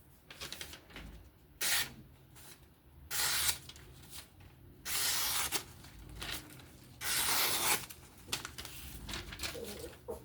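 A knife blade rasping in separate hissy strokes: one short stroke, then three longer ones about a second and a half apart, with lighter scraping and ticks between them.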